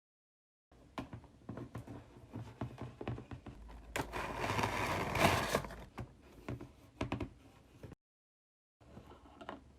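Faint scrapes and clicks of packaging being handled, with a louder rustling scrape about four to six seconds in; the sound cuts out completely for a moment near the end.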